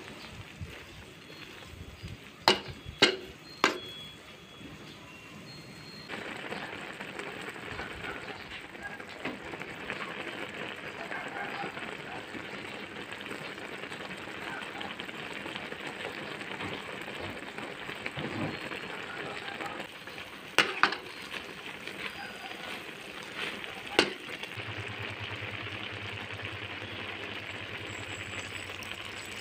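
Liquid sizzling and bubbling in a metal wok as taro leaves cook, growing louder a few seconds in, with several sharp knocks of a spatula against the wok. A low hum joins near the end.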